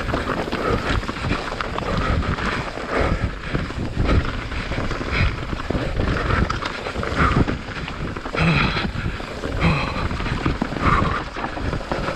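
Mountain bike (YT Jeffsy trail bike) rattling and crunching as its tyres roll fast over loose rock and mud, with irregular knocks and louder bursts, and wind buffeting the microphone.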